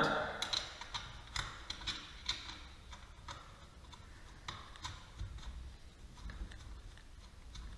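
Light, irregular metal clicks and ticks of a nut being threaded by hand onto a bolt against its washers, several in the first couple of seconds and sparser after.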